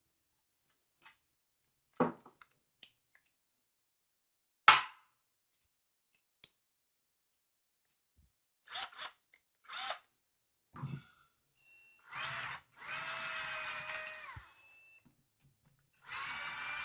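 A few sharp knocks of tools being handled, then a power drill's motor run in short bursts and then longer, steadier runs near the end.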